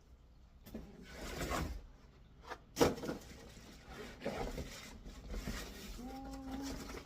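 Rustling and knocking as the vacuum's parts and packaging are handled, with a sharp knock just under three seconds in.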